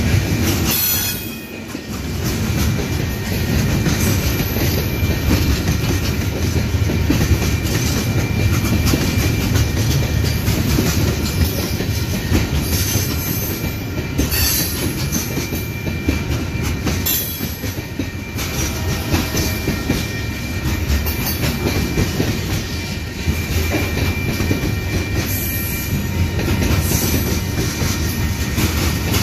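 Freight train cars rolling past close by: a steady rumble with the clickety-clack of wheels over rail joints. A faint thin wheel squeal comes and goes.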